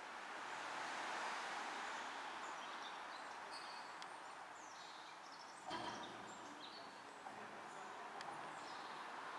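Faint, steady outdoor background noise, with birds chirping now and then and a single brief knock a little over halfway through.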